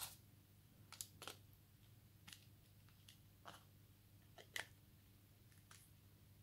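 Faint, scattered clicks and taps of hands handling a Nokia 5130 XpressMusic and fitting its plastic battery cover onto the back of the phone.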